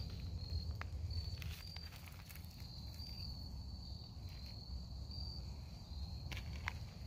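Insects trilling in the woods: a high, steady chirring with brighter pulses every second or so. A few soft footsteps on the trail are heard under it.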